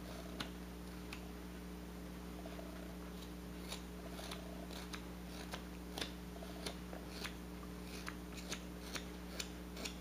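Whittling knife slicing small shavings from a wooden bird carving: a series of faint, sharp snicks, sparse at first and then coming about twice a second from a few seconds in. These are small finishing cuts to clean up knife marks.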